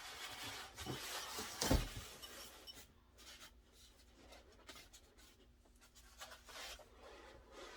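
Cardboard box and packaging scraping and rustling as a boxed cutting machine is worked out of it, with one dull thump a little under two seconds in. After that the rustling goes on more quietly.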